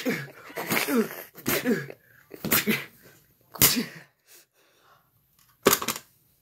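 A person's wordless voice: voiced sounds falling in pitch during the first two seconds, then a few short, sharp breathy bursts spaced apart, like sneezes or snorts.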